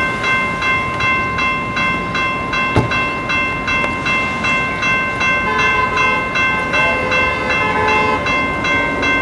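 Railroad crossing bell ringing steadily at about two and a half strokes a second. A single sharp knock comes about three seconds in, and a train horn joins with held tones from about five and a half seconds in.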